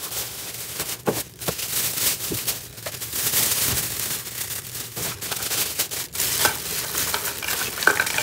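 Thin plastic bags rustling and crinkling as hands rummage through them, with dense crackling throughout.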